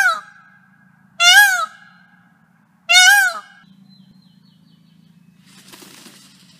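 Indian peacock calling three times, loud wailing cries about a second and a half apart, each rising then falling in pitch. Near the end comes a brief, fainter rustling rattle as he shakes his tail feathers, raising his train to display.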